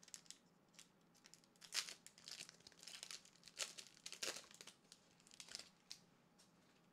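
Foil Pokémon booster pack wrapper crinkling and tearing as it is opened: a string of short, faint rustles.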